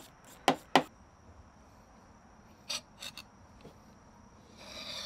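Hand tools clicking and tapping on the outboard's lower unit: two sharp clicks under a second in and a few lighter ones around three seconds. Near the end a raspy, rattling scrape starts and grows louder.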